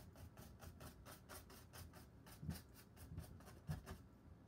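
Chip brush scrubbing oil paint across a stretched canvas, a faint rapid scratching of about five strokes a second.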